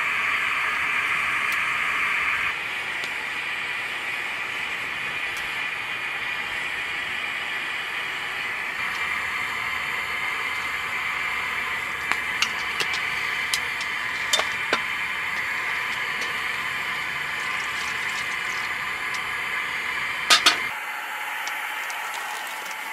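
Steady hissing of open flames at a camp cooking table, with scattered sharp clicks and light metal clinks. The loudest is a sharp double click about twenty seconds in.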